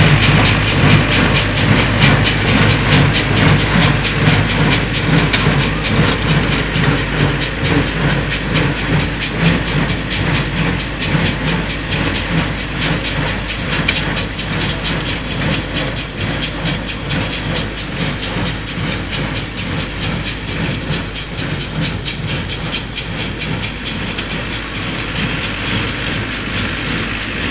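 Tractor-drawn small square baler at work, its plunger packing straw with a fast, steady clatter over the running diesel engine of the Ursus C-360 tractor pulling it. The sound slowly fades as the rig moves away.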